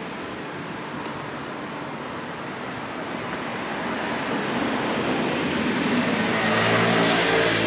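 A vehicle approaching, its noise swelling over the last few seconds, with a steady low hum joining near the end.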